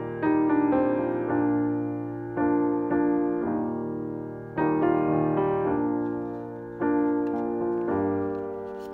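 Background music: a solo piano playing slow chords, one struck about every two seconds and left to ring and fade.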